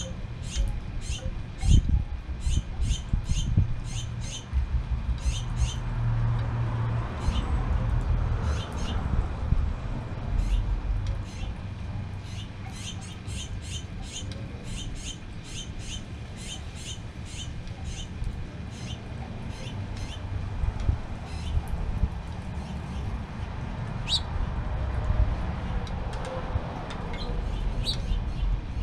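A small bird chirping over and over, about two to three short high chirps a second, thinning to occasional chirps about halfway through, over a low steady outdoor rumble.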